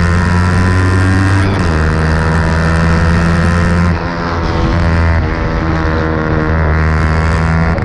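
Sport motorcycle's engine and exhaust heard right beside the muffler, running hard at steady revs. The pitch drops about one and a half seconds in, and around four seconds in the sound briefly dips before the revs climb again.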